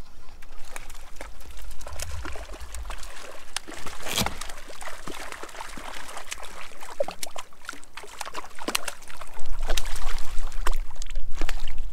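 A hooked brook trout thrashing at the surface beside an inflatable raft, with a run of irregular splashes, the loudest about four seconds in.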